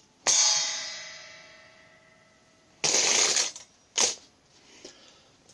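A closing hit on the cymbal mounted on a washboard, ringing out and fading over about two seconds as the song ends. A short noisy burst comes about three seconds in, then a single sharp click.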